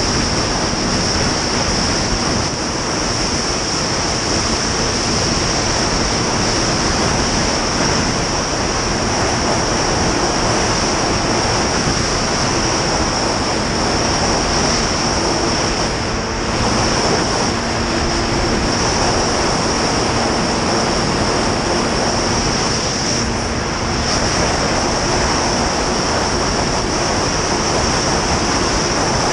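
Snowmobile running steadily at speed over snow, its engine drone faint under heavy wind rush on the camera microphone.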